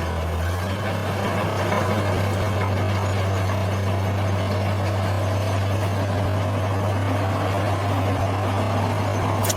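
A bulldozer's heavy diesel engine running steadily with a low, even hum. A brief click comes near the end.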